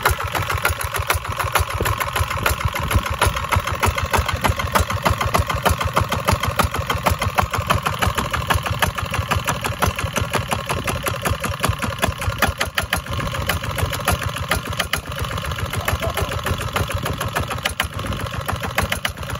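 Farymann 15D single-cylinder diesel engine running steadily with a rapid, even firing pulse, a little quieter in the last few seconds.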